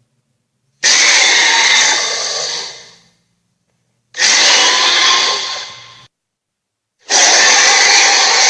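Three dinosaur roar sound effects, each a loud harsh roar of about two seconds that fades away at the end, with short silent gaps between them.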